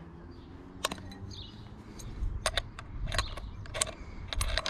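Sharp metallic clicks and clinks from a DeWalt palm router being handled as a cutter is fitted and locked in its collet, about eight irregular clicks with a pair close together near the end.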